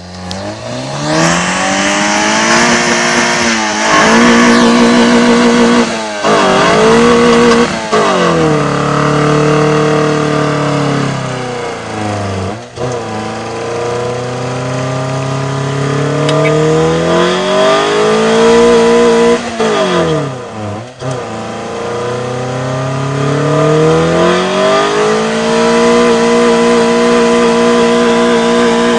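Car engine revving hard during a burnout, rising and falling over and over with several short drops in revs, then held steady at high revs near the end, over the hiss of spinning tyres.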